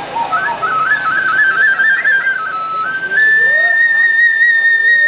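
Japanese bamboo transverse flute (fue) playing an Aomori nebuta hayashi melody: quick stepping, ornamented notes, then one long high note held from about three seconds in. No drums are struck.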